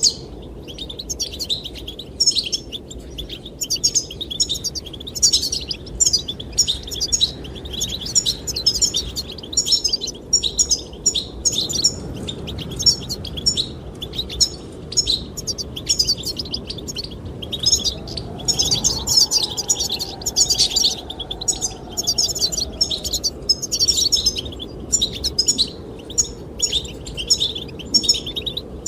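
Goldfinch singing a long, fast twittering song of rapid high chirps and trills without pause, over a steady low rush of wind.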